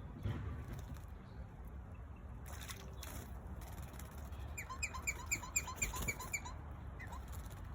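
A bird calling a quick series of about eight short, upward-sweeping notes, roughly five a second, a little past the middle, over a steady low background rumble with two short bursts of rustling noise.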